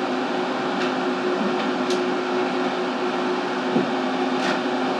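Steady machine hum with a faint whir and several faint clicks, as a spoked metal 35mm film reel is handled on a rewind bench.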